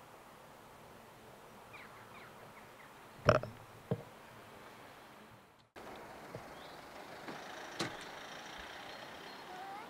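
Quiet outdoor background with a few faint short chirps and two sharp knocks a little past three seconds in. The sound cuts out briefly just before six seconds in and returns slightly louder.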